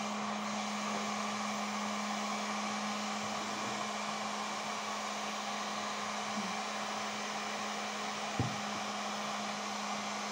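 Electric heat gun (fen) running steadily, a constant rush of blown air with a low, even hum, heating izolon foam to soften it for shaping. A single soft knock near the end.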